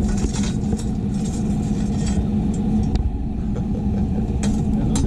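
A motor runs steadily with a low rumble and hum. Over it comes light scraping as coals and ash are raked beneath a steel wire-mesh grill.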